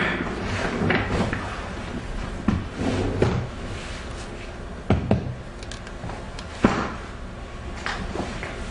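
A series of knocks and clunks a second or two apart, like cupboards, drawers or doors being handled in a small room. The two sharpest come a little past the middle.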